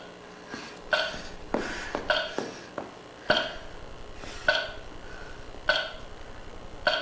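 Rhythmic dance accompaniment: a short, breathy, vowel-like vocal sound repeating about once every 1.2 seconds, with low strokes that drop quickly in pitch between the repeats.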